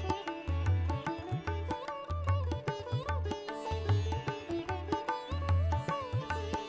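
Background instrumental music: a plucked string melody with bending notes over a repeating low drum pattern.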